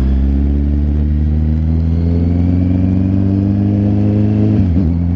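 Kawasaki Z900's inline-four engine running under way, its pitch climbing slowly as the bike gathers speed. Near the end the pitch briefly dips and wobbles, then it runs on steadily.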